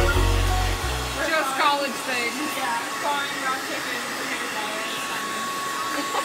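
Handheld hair dryer running steadily, an even rush of air with a thin steady whine, blowing on a frozen pack of ground meat to thaw it.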